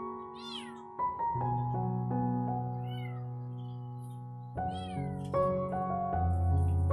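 Kitten meowing in short, high, arching calls a few times, over background music with held notes.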